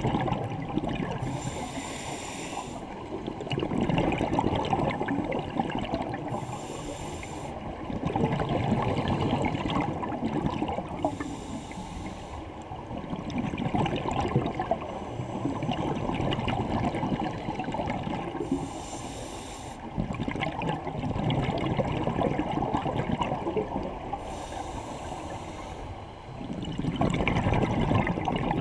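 Scuba diver breathing through a regulator underwater: a short hiss on each inhale, then a loud rush of exhaled bubbles, in five breaths about five to six seconds apart.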